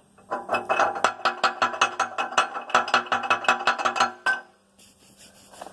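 Worn connecting rod from a Deutz diesel engine being rattled back and forth, making a fast run of metallic clacks, about eight a second, that stops after about four seconds. The clacking comes from slack in the worn rod bearing, the play behind a rod knock.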